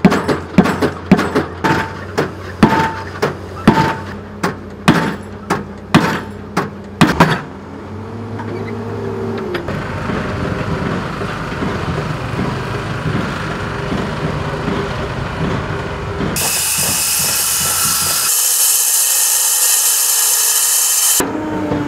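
Pile-driving hammer striking the head of a precast reinforced-concrete pile, about one and a half blows a second, stopping about seven seconds in. Steady engine rumble of site machinery follows. Near the end a hand-held angle grinder cuts through a concrete pile with a loud, high, even noise.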